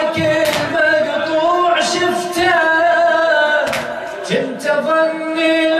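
Men chanting a Shia Muharram lament (latmiya) in Arabic with long held notes, punctuated by a few sharp slaps of hands striking chests.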